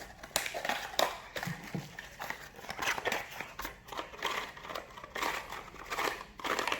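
Packaging being handled as a small box is opened and searched: irregular rustling, crinkling and light scraping.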